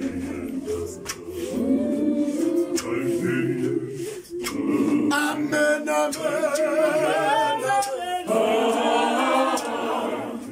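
Group of men singing a hymn unaccompanied, in harmony. A higher, wavering voice stands out over the group around the middle.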